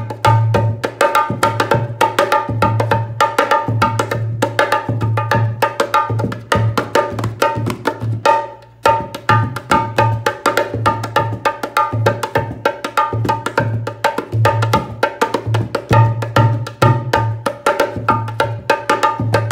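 Dholak played solo by hand: a fast, continuous stream of strokes, sharp ringing slaps on the small treble head over deep booming strokes on the bass head. There is a brief break about eight seconds in before the rhythm picks up again.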